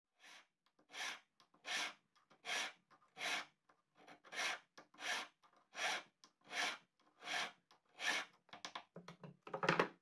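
Flat hand file scraping a small silver earring piece held against a wooden bench pin. The strokes come steadily, about one every three-quarters of a second, then turn quicker and irregular near the end, with the loudest stroke just before it stops.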